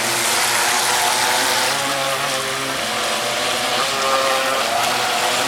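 Small electric motors of radio-controlled toy boats running on the water, a steady hum whose pitch steps up and down as the throttle changes.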